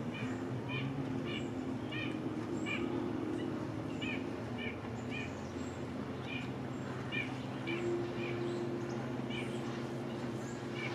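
Osprey calling from the nest, a long series of short, high whistled chirps, about two a second. A steady low motor hum runs underneath.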